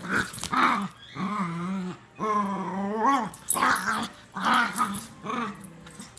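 Small dogs play-growling while wrestling: a string of short rough growls, with two longer drawn-out growling moans in the middle, the second rising in pitch at its end.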